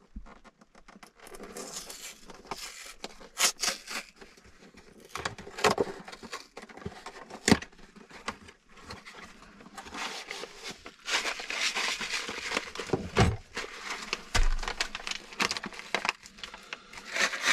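Plastic and paper food packets crinkling and rustling as they are handled and torn open, with scattered sharp clicks and a couple of low knocks.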